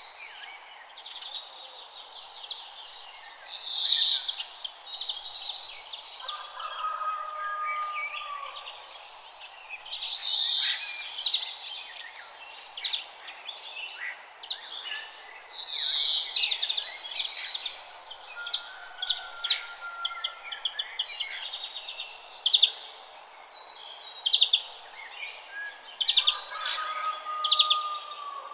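Several birds singing and calling together: a dense mix of chirps and trills over a steady background hiss. A loud, sweeping, falling call comes back about every six seconds, and a few long, level whistles sound now and then.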